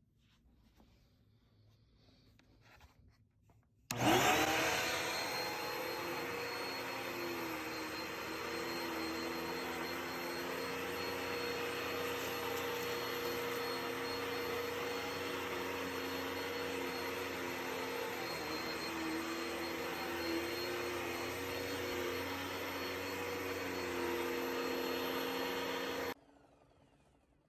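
Hoover WindTunnel XL Pet upright vacuum cleaner switched on about four seconds in, spinning up and then running steadily with a motor whine, its pitch wavering slightly now and then; it is switched off shortly before the end.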